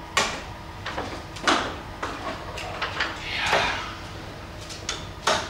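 Darts striking a dartboard mounted on a wooden board: three sharp thuds, the first two about a second apart and the last near the end, with smaller clicks and knocks in between.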